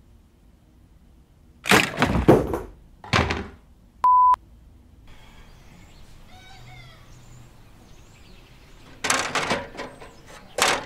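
Several loud knocks and crashes, a short steady beep about four seconds in, then faint birds chirping before a man and his stepladder fall and crash to the ground, in two loud crashes near the end.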